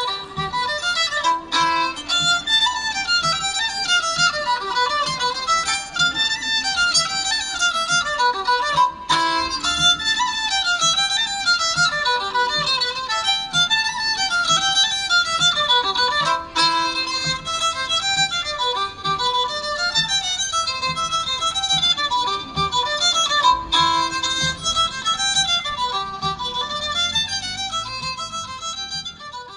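Fiddle playing a fast folk tune of quick running notes, tapering off near the end.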